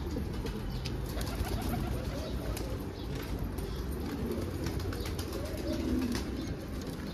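Domestic pigeons cooing in a loft, the low coos strongest near the end, with scattered light clicks over a steady low rumble.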